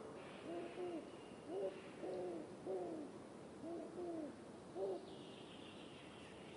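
A series of short animal calls, about seven over five seconds, each rising then falling in pitch, with a thin high tone in the background near the end.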